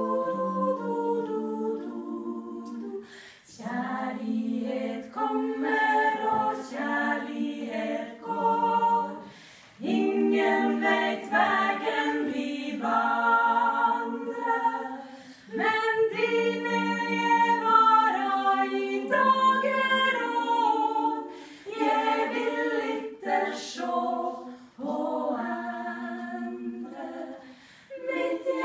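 A small choir of six women singing a cappella, without accompaniment. They sing in phrases of a few seconds with short breaks between them.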